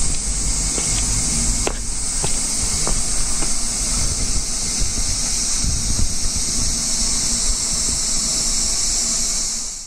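A steady, dense chorus of evening insects, a high hiss-like drone, with a low rumble of wind or water beneath it. The chorus fades out at the very end.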